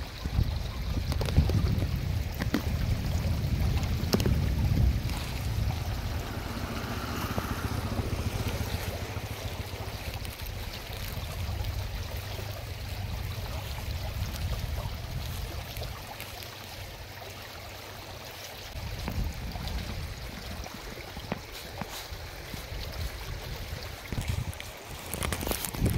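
Steady rush of water flowing through a concrete channel, with a low wind rumble on the microphone that is stronger in the first half.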